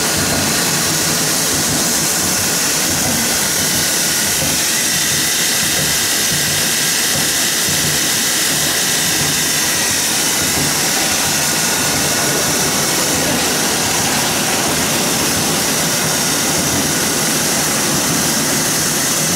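Animal feed extruder line running steadily, its machinery noise mixed with a strong, even hiss of steam venting around the extruder.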